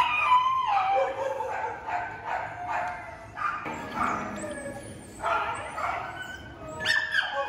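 Several dogs barking and yipping over one another in short bursts, with some high whines among them.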